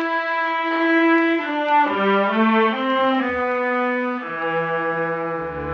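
Orchestral music bridge from a 1950s radio drama, marking a scene change: held string and brass notes move through a few chords and step downward, ending on a deep low note.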